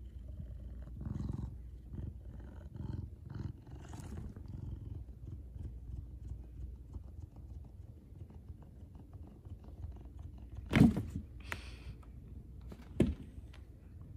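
Savannah cat purring close up, a steady low rumble. Two loud thumps near 11 and 13 seconds in, with a softer one between.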